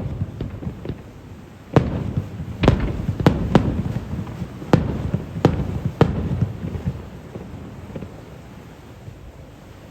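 Aerial fireworks shells bursting overhead: about seven sharp bangs in quick succession with rumbling echoes between them, then the sound dies away to a low rumble over the last few seconds.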